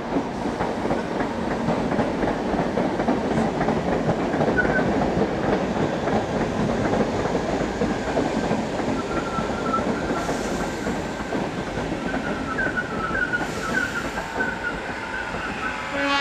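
Great Northern Class 313 electric multiple unit running along the platform: a steady rumble of wheels on rail, with thin high wheel squeals coming and going over the second half.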